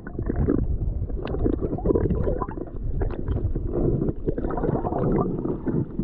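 Wind buffeting the microphone: a loud, low, uneven rumble full of crackles.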